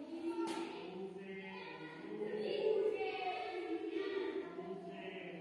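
A group of voices singing a song in chorus, with long held notes.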